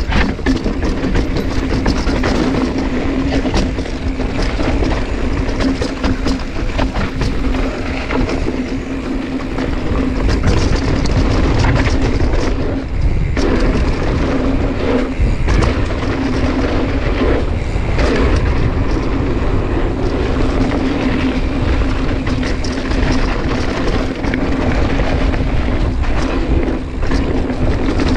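Wind buffeting the camera microphone over the rumble and clatter of a mountain bike descending a dirt trail, with frequent knocks from the bike over bumps and a steady hum underneath.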